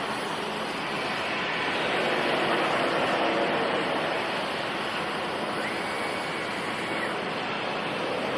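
CNC plasma torch cutting metal: a steady hiss of the plasma arc and air, with a faint high tone joining briefly near the end.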